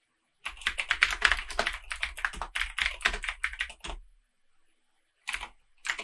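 Computer keyboard typing: a fast run of keystrokes lasting about three and a half seconds, then a pause and two short clusters of keystrokes near the end.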